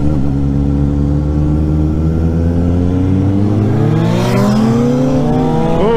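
Motorcycle engine running steadily, then revving up with a rising pitch from about halfway through as the bike accelerates, the pitch falling sharply right at the end as the revs drop.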